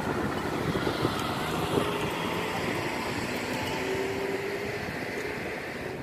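Steady wind buffeting the microphone at the seashore, a continuous rumbling rush with faint background tones.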